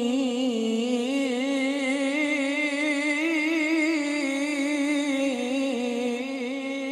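A male Quran reciter (qari) holding one long melismatic note of tilawah, the pitch wavering in quick ornamented turns through the middle and easing off near the end of the breath.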